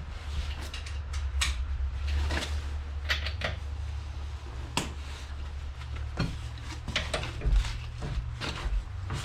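Metal tools and car parts clinking and knocking in irregular, sharp strikes over a steady low hum.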